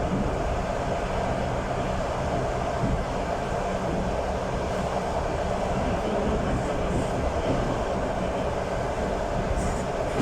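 Passenger train running along the rails, heard from inside the carriage as a steady rumble.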